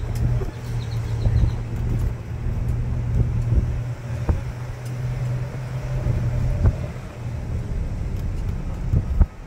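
Engine and road noise heard from inside the cab of a slowly moving pickup, a 1998 Dodge Ram 2500: a steady low hum with a few light knocks, easing slightly lower near the end.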